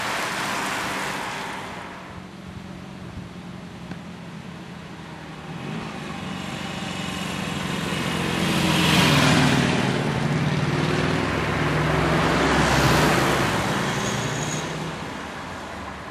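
Two motor vehicles pass close by one after the other, a car and then a van: engine and tyre noise swells to a peak about nine seconds in and again about thirteen seconds in, then fades. Before that, a rushing noise fades away in the first two seconds.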